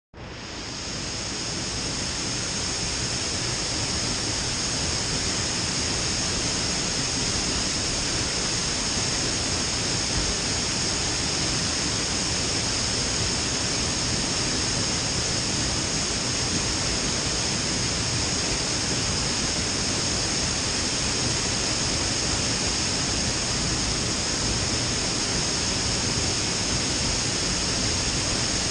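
Waterfall: a steady, unbroken rush of falling water that fades in over the first second.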